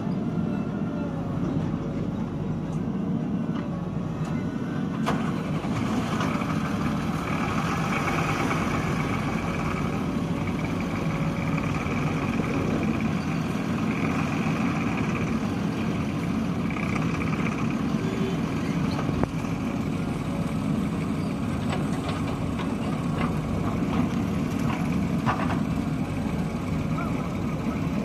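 Diesel engine of a JCB 3DX Eco Xpert backhoe loader running steadily as the machine works.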